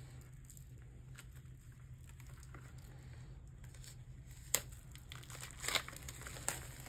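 Album packaging and paper inserts crinkling and rustling as they are handled. There are sharp clicks about four and a half seconds in, and again near the end.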